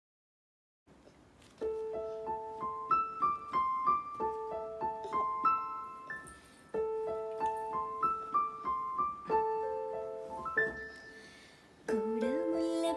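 Piano or electric keyboard playing a gentle song introduction of climbing broken-chord phrases, each starting on a held low note; it begins about a second and a half in. Near the end a woman starts singing over it.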